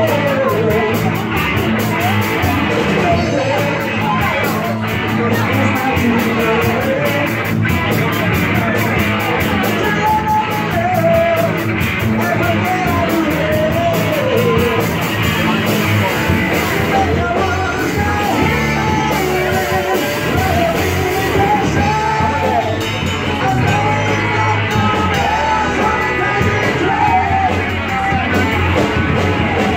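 A live rock band plays a hard rock song: electric guitars, drums and a sung vocal line.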